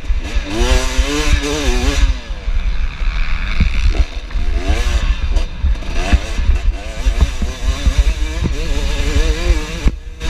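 Two-stroke KTM 300 XC dirt bike engine revving up and down repeatedly as it is ridden off, with wind rumble on the microphone.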